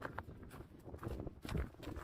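A hiker's footsteps along a trail: uneven, irregular steps with a few short sharp clicks.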